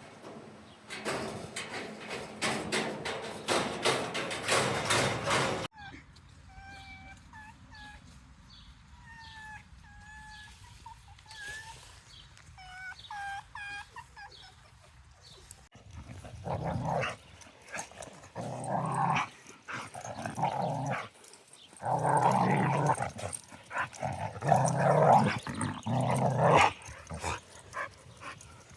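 A pet fox making loud, harsh vocal bursts again and again while play-wrestling with a puppy. It sounds aggressive, but it is play: the fox is deaf and just far more vocal. Earlier there is a noisy rustling stretch, then a quieter run of short, high chirping calls.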